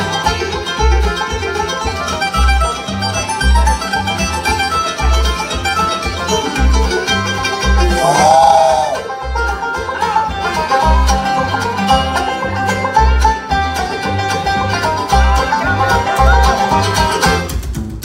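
Live bluegrass band playing an instrumental break: banjo, fiddle, mandolin, acoustic guitars and upright bass, the bass notes falling on a steady beat. About halfway through a note swoops up and back down.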